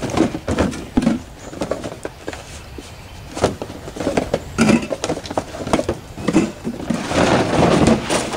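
Irregular knocks and clatter of gear being handled in a pickup bed, then a longer scraping slide about seven seconds in as a plastic cooler is pushed across the truck bed.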